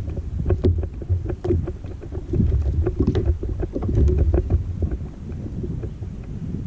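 Wind rumbling and gusting on the microphone, with many small, irregular knocks and clicks.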